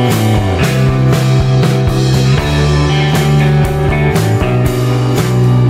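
Background rock music with guitar, bass and drums keeping a steady beat.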